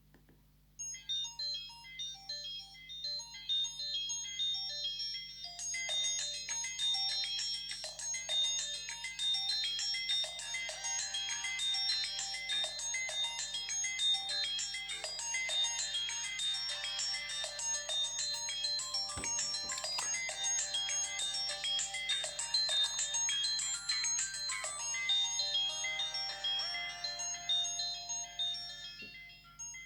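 Nokia Asha 200 mobile phone playing a ringtone: a melodic electronic tune that starts about a second in, grows fuller after about five seconds, and dies away near the end.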